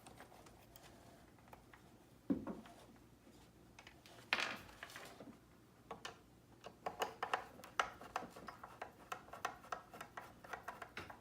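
Screws being turned out of a plastic side-mirror housing with a hand screwdriver: small scrapes and clicks, two sharp knocks, then a quick run of small ticks over the last few seconds.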